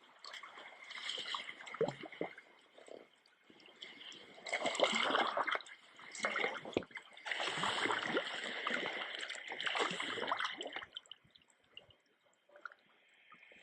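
Sea water splashing and gurgling in irregular surges, loudest about five seconds in and again from about seven to eleven seconds in, then dying down near the end.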